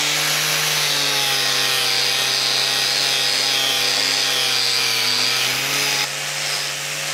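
Angle grinder with a poly strip (clean-and-strip) disc running against a steel stub axle, scouring it clean to bare metal before welding: a steady motor whine under a rough hiss, a little quieter about six seconds in.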